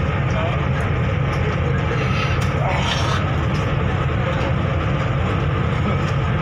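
Steady low engine rumble of a river ferry under way, with an even hiss of wind and water over it.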